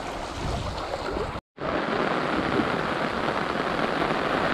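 Water gushing through a narrow gap in a small earthen channel. After an abrupt cut about a second and a half in, it gives way to the steady hiss of rain falling.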